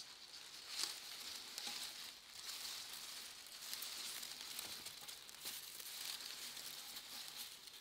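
Faint rustling and crackling of dry grass stalks being handled and pushed aside, with a few sharper crackles.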